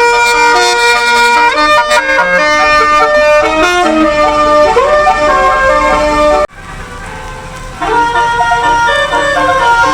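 Bus 'telolet' basuri multi-tone air horn playing a tune of held notes that step from pitch to pitch. About two-thirds of the way through, the sound cuts off abruptly, leaving a low rumble. The horn tune returns about a second later.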